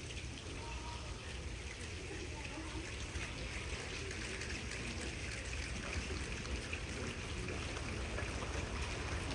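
A crowd of children and audience members imitating rain together: a dense patter of tiny clicks over a soft hiss, slowly growing louder.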